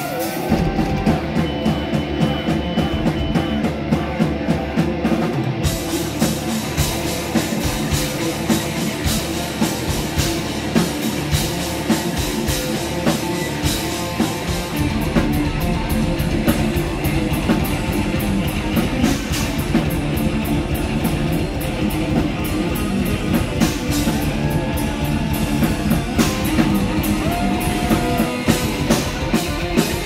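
Live instrumental hard-rock/metal band playing loudly: lead electric guitar over a drum kit, with crashing cymbals joining about five seconds in.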